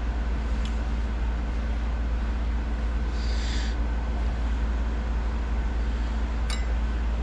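Parts washer running steadily in the shop: a low hum with an even hiss over it. A couple of faint clicks, and a short high hiss about three seconds in.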